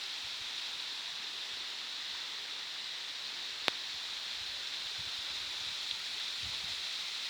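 Waterfall water falling and rushing as a steady hiss, with a single sharp click a little past halfway.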